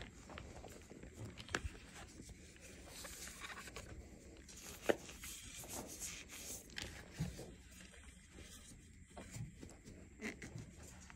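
Hands crumbling and squeezing a block of gym chalk and dried cornstarch paste, with soft crunching, powdery rubbing and scattered small crackles. One sharper crack comes about halfway through.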